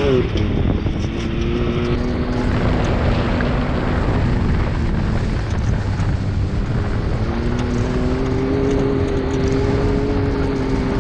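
Can-Am Maverick X3 side-by-side driving on a dirt trail, its turbocharged three-cylinder engine running under steady throttle over a constant rush of wind and tyre noise. The engine note rises and drops sharply at the start, then climbs again about seven seconds in and holds.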